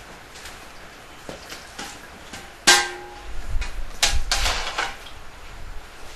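Tableware being handled: a few light knocks of bowls, then one sharp metallic clank that rings briefly, a little before the middle, followed by about two seconds of rattling and clattering as steel trays and kettles are set down among the bowls.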